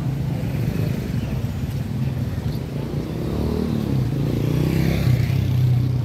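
Small motorcycle engine running close by, growing louder in the second half.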